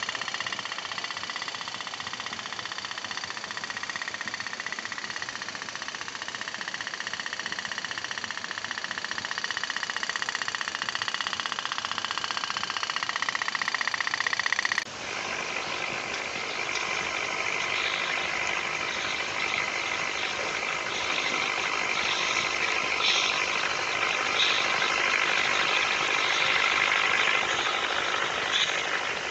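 Toy pop-pop (otok-otok) steam boat engine putt-putting in a rapid, steady rhythm, its candle-heated boiler pulsing water out of the tubes. The sound changes abruptly about halfway through and runs on louder and brighter.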